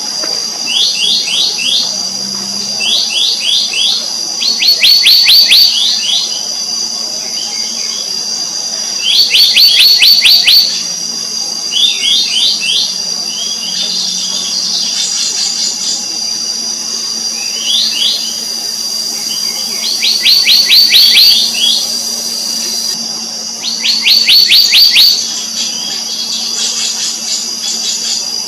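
Black-naped monarch calling: short series of rapid, ringing high notes, several notes to a series, repeated every one to four seconds. The calls sit over a steady high-pitched hum.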